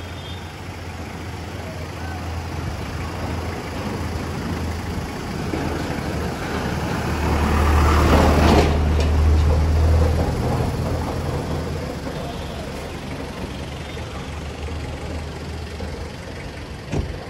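A motor vehicle's engine running, growing louder as it passes close by about eight to ten seconds in, then fading, over street noise. A single sharp knock near the end.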